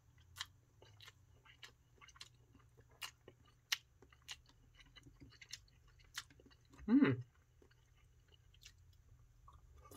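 A person chewing a mouthful of soft instant curry noodles, with small wet mouth clicks about every half-second and a short hum about seven seconds in.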